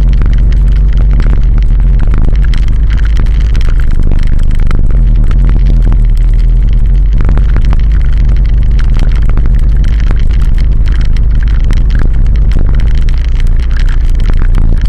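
Heavy wind rumble on an action camera's microphone from a vehicle moving along a broken, potholed road, with the engine running underneath and frequent knocks and rattles as it goes over the bumps.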